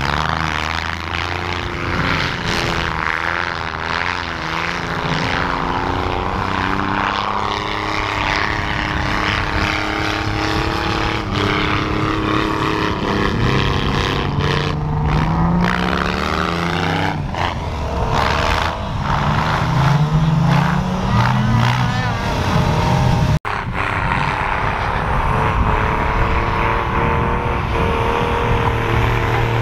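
A small 4x4's engine revving hard and unevenly, its pitch rising and falling again and again as the vehicle spins its tyres through deep powder snow. It breaks off abruptly about 23 s in and picks up again at a similar pitch.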